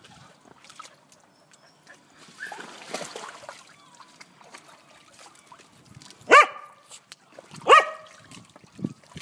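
A dog barking twice, loud and short, about a second and a half apart, with fainter dog noises and light water sounds from dogs wading in a paddling pool.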